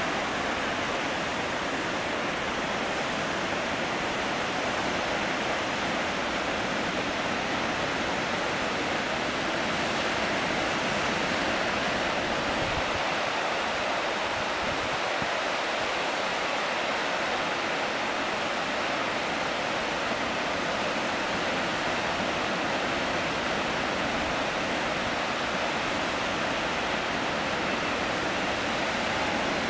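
Marmore Falls in full flow: water pouring down the tiered cascades in a steady, unbroken rush.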